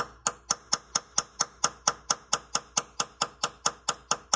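Hammer tapping quickly and steadily on a nail held as a punch against a broken drill-bit tip, about four or five sharp metallic taps a second, to drive the broken bit down out of the bolt hole.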